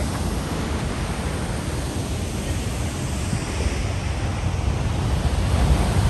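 Pacific surf breaking and washing over a rocky shore, a steady rushing noise that grows slightly louder near the end, with wind rumbling on the microphone.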